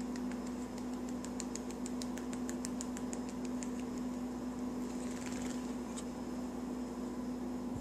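A steady low hum, with a run of light, quick clicks about four a second over the first three and a half seconds and a few more around five to six seconds in.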